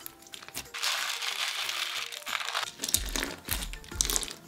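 Plastic beads poured onto clear slime in a dense rattle for about two seconds. Then come sharp crackling pops as a hand presses the bead-packed slime. Background music with a steady beat plays underneath.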